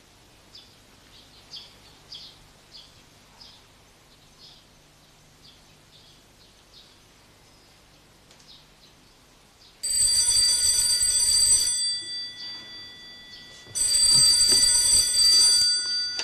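Faint high chirping, then a telephone bell rings twice, each ring about two seconds long with a short pause between.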